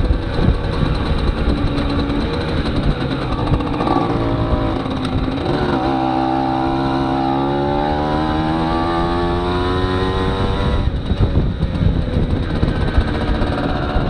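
A 1992 Aprilia Classic 50 moped's 50 cc two-stroke engine running under way, with wind rumbling on the microphone. From about six seconds in the engine note climbs slowly for several seconds, then falls away near eleven seconds.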